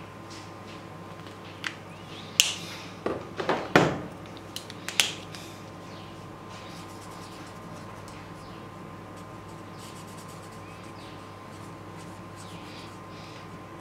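Marker caps clicking and markers knocking on a hard surface as one marker is put down and another opened, a cluster of sharp clicks over a few seconds. Then faint strokes of a felt-tip marker colouring on paper.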